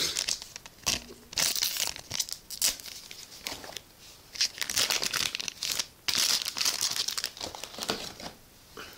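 Foil trading-card booster pack crinkling and tearing as it is handled and opened by hand, in irregular bursts.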